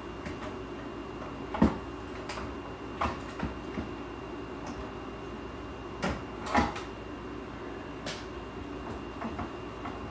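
Scattered knocks and clicks as parts of a dismantled old vacuum cleaner are handled, the loudest about one and a half seconds in and a pair around six seconds in, over a steady low hum.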